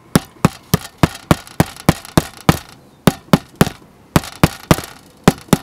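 Ball-peen hammer tapping on an asphalt-shingled roof, about three sharp knocks a second with a couple of brief pauses. It is the hammer test for a rafter: the knock sounds hollow over the bare decking and denser where a rafter lies underneath.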